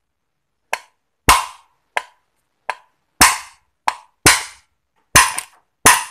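A hammer striking a steel rod used as a drift to drive the worn, loose bushing out of a blender base: about nine sharp knocks, roughly one every half second or so, heavy blows alternating with lighter taps, each ringing briefly.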